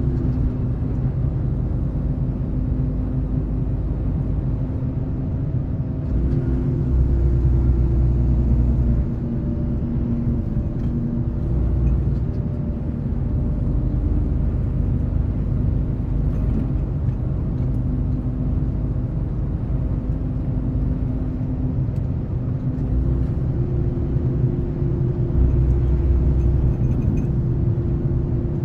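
A motor vehicle running with a steady low rumble. Its engine tone steps higher and lower a few times.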